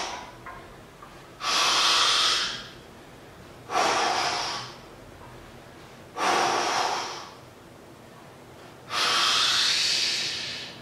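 Heavy, forceful breaths from a man straining through a set of heavy strict barbell curls: four long breaths, roughly one every two and a half seconds, after one tailing off at the start.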